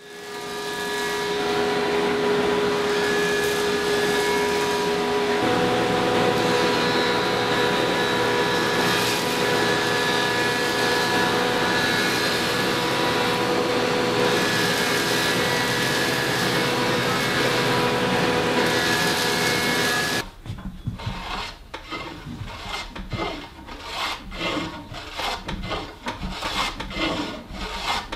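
Power jointer running with its dust collector, a steady machine hum with fixed tones as a white oak board is fed across the cutterhead. About 20 seconds in it gives way to a Veritas bevel-up jointer hand plane taking a series of short shaving strokes along the board's edge.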